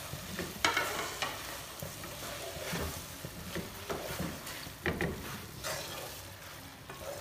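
Wooden spoon stirring minced meat with fried bitter gourd and onions in a metal pot, the mixture sizzling in oil over a high flame, with a few short scrapes and knocks of the spoon against the pot.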